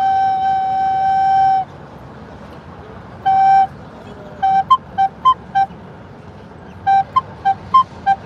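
Yamaha YRS-402B soprano recorder played solo: a long held note, a pause, then a run of short, detached notes hopping between two pitches.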